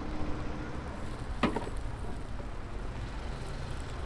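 A hinged cast-iron egg-bread mold shut with one sharp metal clank about a second and a half in, over a steady low rumble of street noise.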